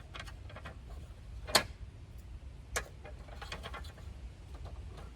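A few sharp clicks and taps from plugging a charging cable into a wireless doorbell camera, the loudest about one and a half seconds in and another a little before three seconds in.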